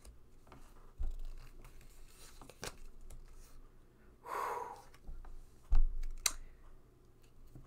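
Tarot cards being handled on a cloth-covered table: light scraping and clicking as cards are picked up and moved, a brief swish a little past the middle, and a couple of soft thumps, the loudest about six seconds in.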